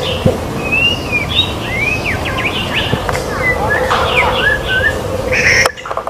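White-rumped shama (murai batu) singing: a run of clear whistled notes, many sliding up or down in pitch, over a steady background hum. Near the end the sound cuts off suddenly.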